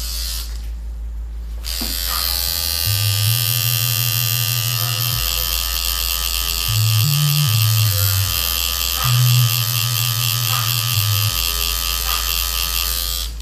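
Electric tattoo machine running with a steady, high buzz that starts about two seconds in and cuts off at the end, its pitch wavering slightly.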